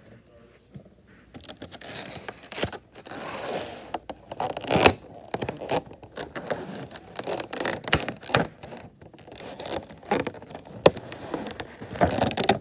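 Clear plastic packaging tray being handled and pried apart: irregular scraping, crinkling and sharp clicks of stiff plastic, starting about a second in.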